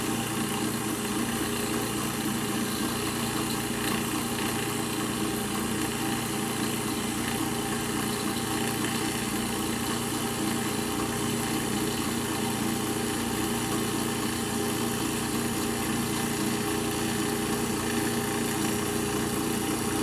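Milling machine running steadily, an end mill taking a slow, light cut as it is fed across a round tube to form a square hole.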